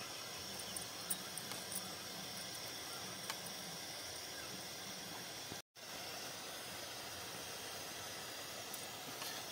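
Steady hiss with a few faint light clicks as a steel spoon scoops egg mixture from a steel bowl. The sound cuts out completely for a moment a little past the middle, then the hiss returns.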